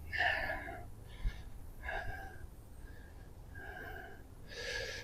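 A man breathing in and out through his nose, about four soft breaths, with a faint knock about a second in.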